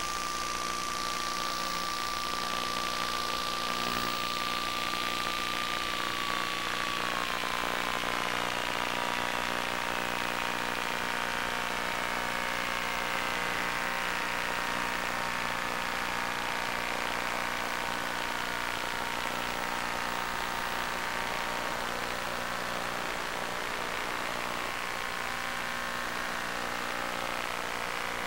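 Electric motor and propeller of a radio-controlled FPV airplane running, with a whine that slides slowly down in pitch as the throttle is pulled back from high power for a descent. A steady tone drops a step about seven seconds in.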